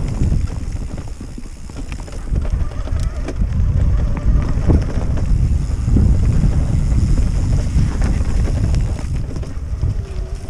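Wind buffeting the microphone while riding a mountain bike on a trail, a continuous low rumble, with scattered clicks and rattles from the tyres and bike over the ground.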